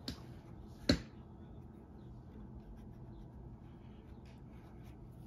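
Hands handling a leather insole on a plastic shoe last: two sharp clicks in the first second, the second much louder, then faint scratching and rubbing of fingers on the leather.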